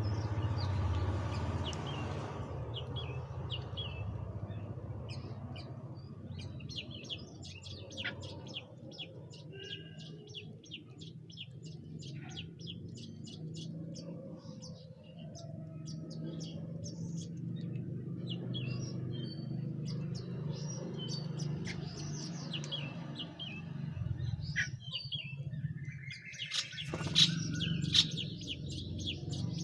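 Birds chirping in many short, high calls over a steady low hum, with a couple of sharp clatters near the end.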